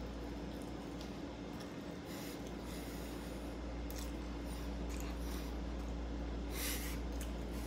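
A man chewing a mouthful of breakfast taco, with soft wet mouth clicks and breathing through the nose. There is one louder nasal breath about six and a half seconds in.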